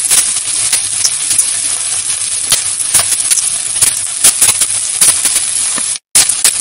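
Sliced onions sizzling in hot oil in a metal kadhai, a steel spoon stirring them and clicking and scraping against the pan. The sound drops out for an instant near the end.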